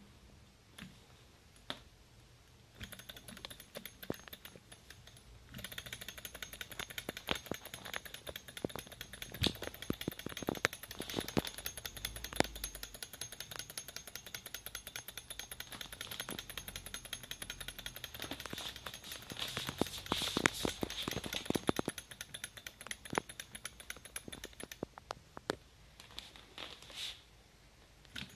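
Small Stirling-engine model tank running, with a rapid, dense clicking and rattling from its crank linkage and tracks. The clicking starts about three seconds in, grows busier from about six seconds and dies away near the end. The owner says its tracks do not mesh properly with the drive wheels, so it barely moves.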